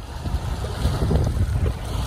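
Wind buffeting the microphone: a gusty low rumble that swells and fades, over the faint wash of water along the shore.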